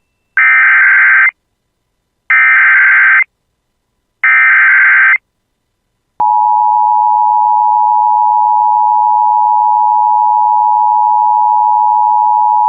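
Emergency Alert System SAME header: three bursts of shrill digital data tone, each about a second long with a second's gap between them, encoding the severe thunderstorm warning. About six seconds in, the steady two-tone EAS attention signal starts and holds.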